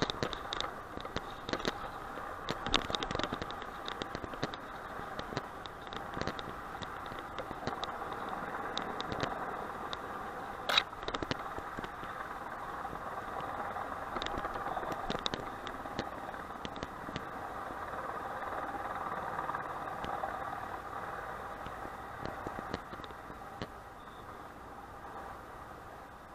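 Steady outdoor background noise with scattered clicks and rattles in the first few seconds and one sharp click about eleven seconds in.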